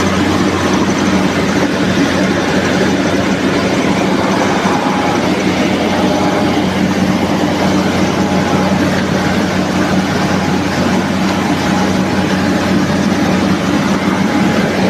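NG 25D combined rice milling machine running steadily: a low, even hum under a dense, constant mechanical noise.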